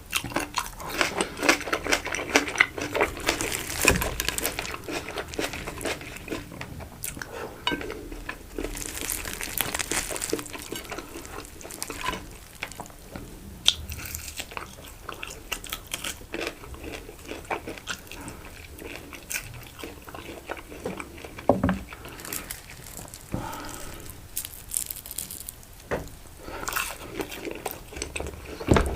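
Close-miked eating sounds: biting and chewing with crisp crunching, densest in the first few seconds and again around ten seconds in, with a couple of sharper knocks later on.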